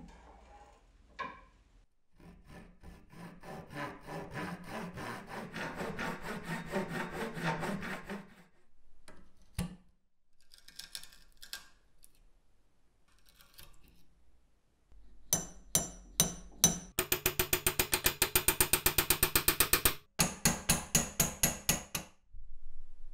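Old wooden handle and wedge being worked out of a rusty hatchet head clamped in a bench vise: runs of rhythmic scraping and prying strokes, then rapid, evenly spaced hammer blows, several a second, in the last third.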